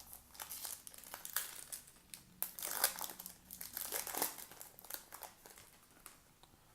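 Crinkly wrapper of a baseball card pack being torn open and crumpled, a run of irregular crackles that stops about six and a half seconds in.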